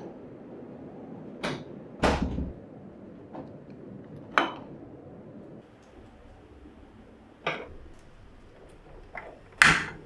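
A series of sharp knocks and clicks a second or few apart from kitchenware being handled, including a pot set down on a portable cassette gas stove. Near the end comes the loudest click, as the stove's igniter is turned and the burner lights.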